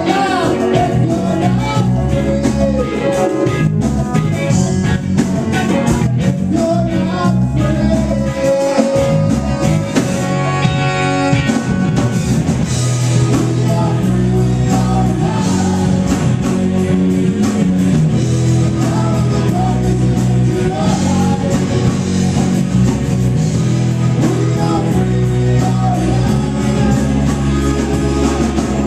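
Live reggae-rock band playing at full volume: drum kit, bass, electric guitar and keyboards, with a saxophone melody line on top.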